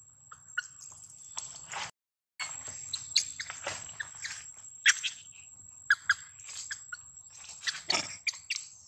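Outdoor animal sounds: scattered short chirps and sharp clicks over a steady high-pitched tone, with a brief dropout about two seconds in.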